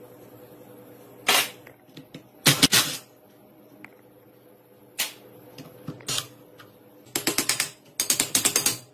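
Metal parts of an old electric water pump knocking and clinking as it is taken apart by hand: a few separate knocks, then two quick runs of rapid clicking near the end.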